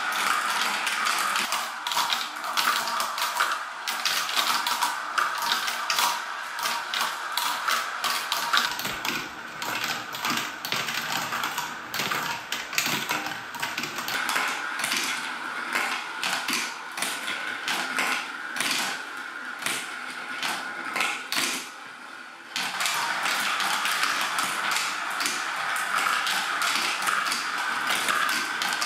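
Glass marbles rolling and clattering along a plastic marble run. A steady rolling rattle is dotted with rapid clicks as they strike the spiral rails, track joints and each other.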